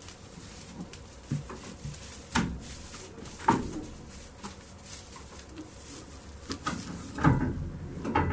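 A few short knocks and thumps on wood, spaced irregularly, the loudest a little before the end: goats shifting and bumping about in a wooden, straw-bedded stall.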